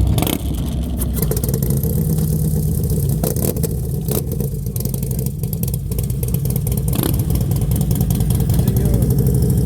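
Several motorcycle engines running loudly close by, a steady deep rumble with some revving.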